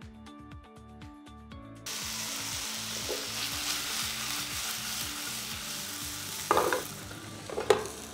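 Background music, then from about two seconds in, chicken skewers sizzling as they fry in oil in a frying pan over a gas flame. Near the end two knocks, the glass lid being put on the pan.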